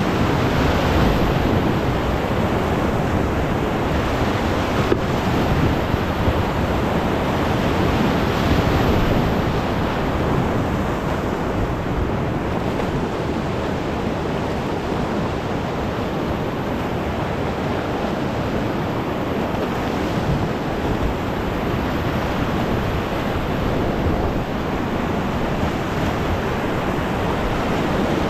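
Whitewater rapids rushing steadily around an open canoe running a river.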